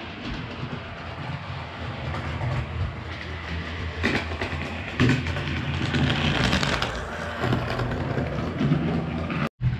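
00 gauge model train running on the layout's track: a steady rolling rumble and motor hum, with clicks over the rail joints that get louder and rougher for a few seconds in the middle.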